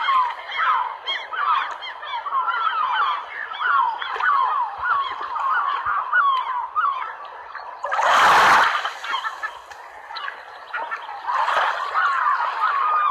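A flock of waterbirds honking, with many short calls overlapping. About eight seconds in, a brief, loud rush of noise briefly drowns them out.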